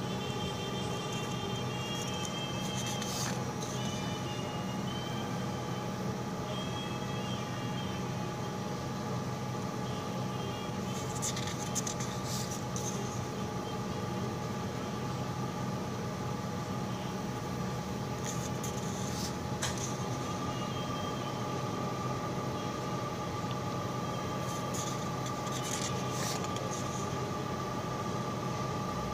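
A steady mechanical hum with a few constant tones, broken by brief rustles of paper sheets being handled and swapped several times.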